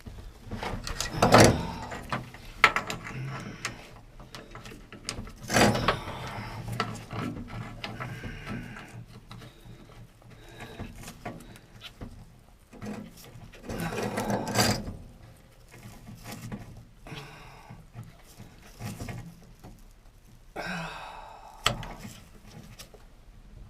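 Hand tools working on seized, headless floor bolts that have been soaked in penetrant: irregular metal clanks and scraping, with a few louder knocks spread through the attempt. The bolts do not come out.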